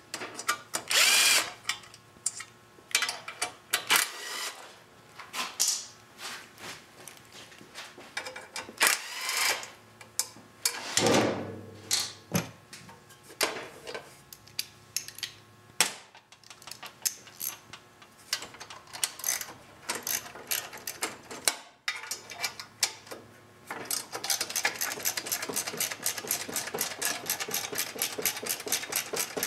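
Hand tools working the bolts of a lawn mower engine's sheet-metal shroud: scattered metal clicks and knocks, with one louder clank about a third of the way in. Near the end comes a fast, even run of socket-wrench ratchet clicking as a bolt is backed out.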